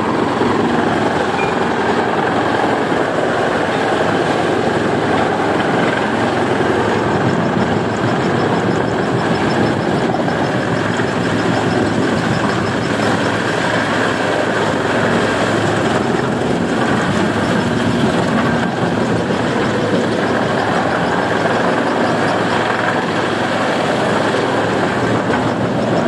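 Yulong TR-A80130 wood chipper running at full operation, a loud, steady mechanical din without pauses.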